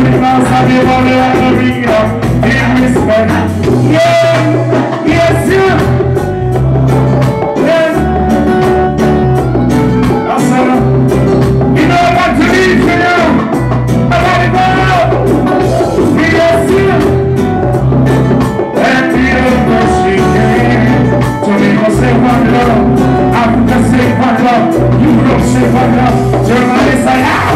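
Live reggae band playing loud through the club PA: drum kit, a heavy repeating bass line and keyboards, with a singer's voice on the microphone over the band.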